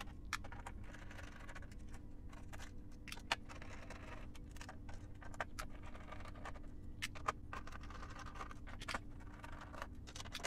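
Hand screwdriver undoing the screws that hold a circuit board in a metal chassis: faint scratching of the bit in the screw heads, with scattered small clicks.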